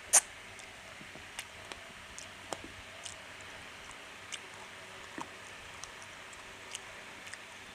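A person eating rice and chicken curry: chewing with scattered short mouth clicks, one much louder click just after the start, over a steady faint hiss.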